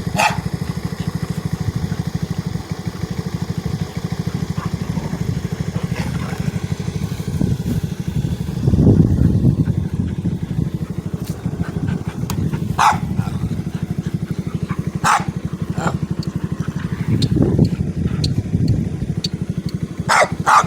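Genuine Buddy 150 scooter's small single-cylinder engine idling steadily, getting louder for a couple of seconds twice. Over it a dog barks a few times, in a quick run of barks near the end.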